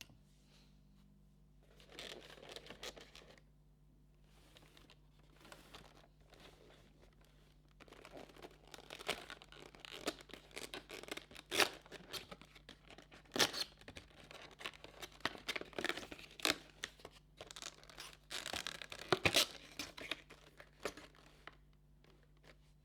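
Cardboard and plastic packaging being torn and crinkled as a makeup advent calendar compartment is opened and its small item unwrapped. A short bout of rustling comes about two seconds in, then a longer stretch of irregular tearing and crinkling with sharp snaps.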